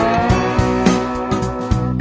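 Background music: a country-style song with guitar and a steady beat.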